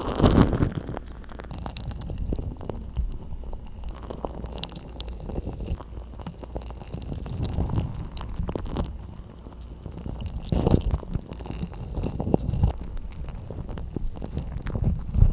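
Slime squished and pressed against a microphone: irregular wet squelches and crackles over muffled low rumbling thumps, louder near the start and again about ten seconds in.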